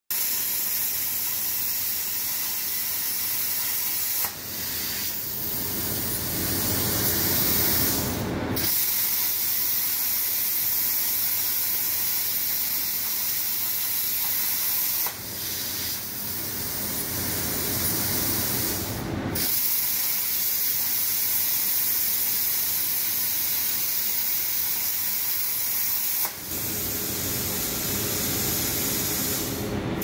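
Hypertherm Powermax 105 plasma torch on a Dynatorch XLE CNC table, cutting holes in steel plate: a steady, loud hiss from the arc. Three times a deeper rushing sound joins in for about four seconds, then the hiss stops for a moment and starts again.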